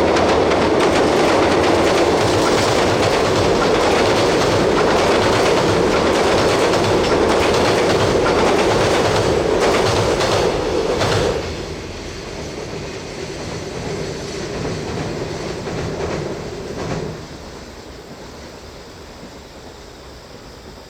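Freight train wagons rolling past on jointed track with a clickety-clack. The noise cuts off sharply about eleven seconds in as the end of the train passes, then a fainter rumble dies away a few seconds later.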